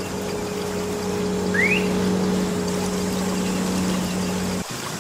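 A steady motor hum with water noise as a toy dump truck drives through shallow water; the hum cuts off sharply near the end.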